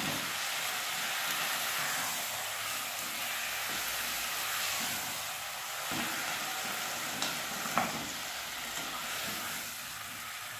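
Chicken pieces sizzling steadily in hot oil with garlic and onion in a pan as they are stirred and turned, with a couple of light knocks about three quarters of the way through.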